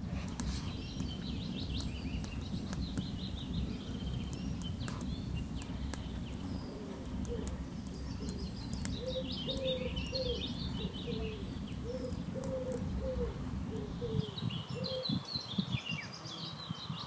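Wild birds chirping and singing, with a lower call of short repeated notes, roughly one or two a second, from about seven to fourteen seconds in, over a steady low rumble.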